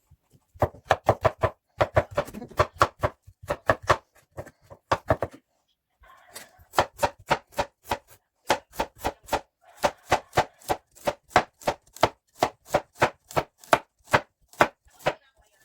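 Knife chopping vegetables on a cutting board in fast, even strokes, about three to four a second. The chopping pauses briefly about five seconds in, then resumes.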